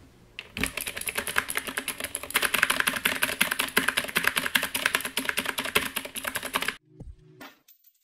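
Fast typing on a Dierya x Kemove DK61 60% mechanical keyboard fitted with clicky Gateron Optical Blue switches: a dense stream of sharp keystroke clicks that begins about half a second in and stops suddenly near the end.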